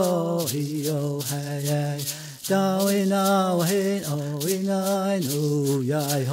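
A man chanting unaccompanied in a low voice: long held notes that step up and down between a few pitches, with a short break about two and a half seconds in.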